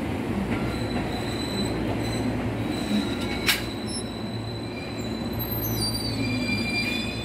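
Train wheels squealing on curved track as a train rolls slowly through the points, thin high squeals held over a steady low rumble. One sharp clank about three and a half seconds in.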